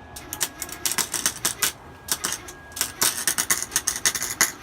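Wire-feed welder arc crackling and spitting in irregular spurts that stop and start a few times as short weld runs are laid.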